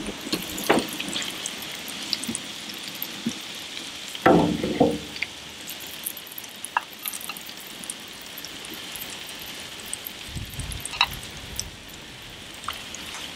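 Metal grill tongs clicking and scraping against an aluminium foil tray and a ceramic plate as grilled vegetables are served, with scattered sharp clicks over a steady faint hiss. A brief louder sound comes about four seconds in.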